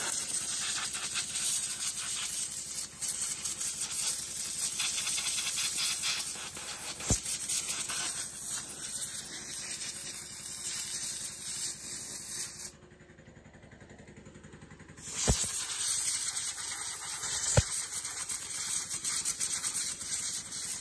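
Steady hiss of a blast cleaning a starter motor, stopping for about two seconds just past the middle, with a few sharp knocks.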